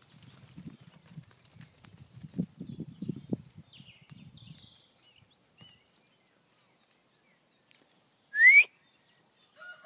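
Soft scuffing footsteps and shuffling of llamas on dirt for the first half, with small birds chirping faintly. A loud, short rising whistle comes near the end.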